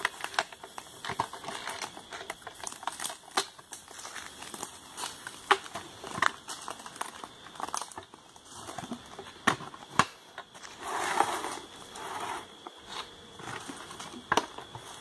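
Dry leaf litter crackling and rustling, with scattered clicks and knocks as a wooden transport box is handled and opened by hand.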